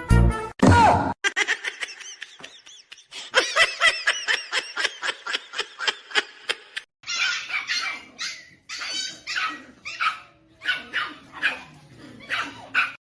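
A dog barking and yipping in quick, repeated short calls. A brief bit of music ends about a second in.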